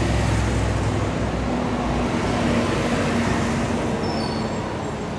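Urban road traffic: cars and motorbikes passing close by, with a low rumble that is heaviest in the first second and a steady engine hum through the middle.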